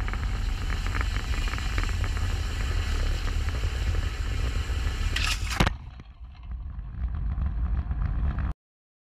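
A small fixed-wing drone's propeller engine runs at full power on a rail catapult, over heavy wind rumble on the microphone. About five and a half seconds in, the catapult fires with a quick whoosh and a sharp bang as it launches the drone. After that the engine sound drops away and only wind rumble remains.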